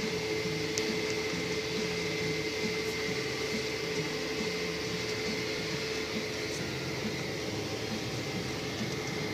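Tractor engine and drivetrain running at a steady pace under load, heard inside the cab while the tractor pulls a land-levelling scraper across the field. It is a constant drone with a steady whine running through it.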